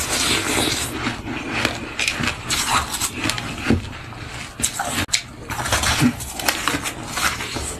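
Ice being bitten and crunched close to the microphone: irregular sharp cracks and crackling crunches, one after another.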